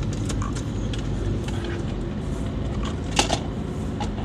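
Steady low rumble of a vehicle, with scattered small clicks and rattles and one sharper click about three seconds in.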